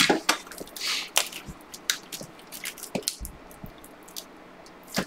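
Hands unwrapping and opening a sealed trading-card box: scattered crinkles, scrapes and taps of wrapper and cardboard.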